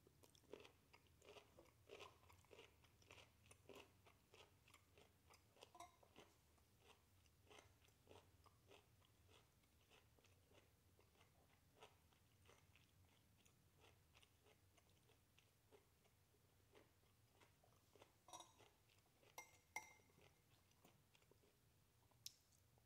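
A person chewing broccoli: faint crunching and mouth clicks, densest in the first several seconds. Later come a few sharper clicks with a brief ring, from a metal fork against the ceramic bowl.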